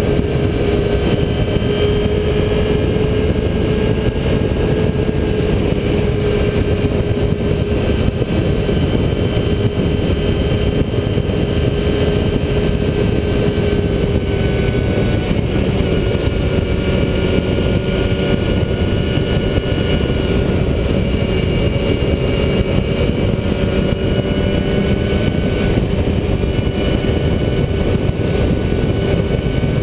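Motorcycle cruising at steady highway speed, its engine holding a nearly constant note under a heavy rush of wind on the bike-mounted microphone.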